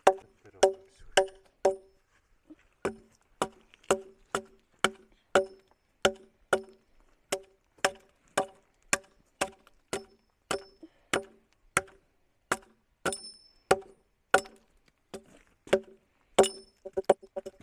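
Axe chopping wood: about two sharp blows a second, each a knock with a short ring, with a brief pause about two seconds in and a quick run of lighter taps near the end.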